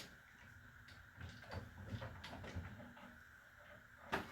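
Hand ratchet clicking faintly and sparsely as it turns a large nut off a hydraulic cylinder shaft, with a louder metal knock near the end.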